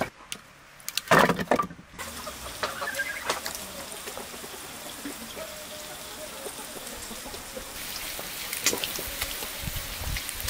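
Split firewood logs clunking together as they are picked from a woodpile, loudest about a second in, followed by scattered small clicks. Near the end a steady hissing sizzle of lamb pieces frying in a black cauldron.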